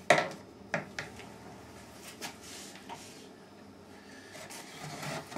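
Handling of a wooden vending-machine coin mechanism on a workbench: a sharp wooden knock at the start, another under a second later, then a few lighter clicks and some rubbing and shuffling of wood.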